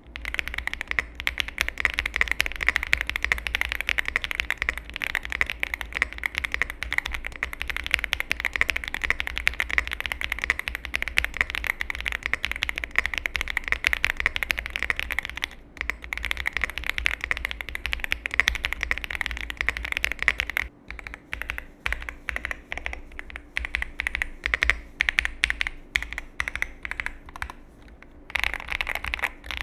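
Yunzii AL75 mechanical keyboard, with Cocoa Cream switches in an aluminium case, being typed on fast: a dense run of clacky keystrokes. The typing breaks off briefly about halfway, goes slower and sparser in the last third, then speeds up again near the end.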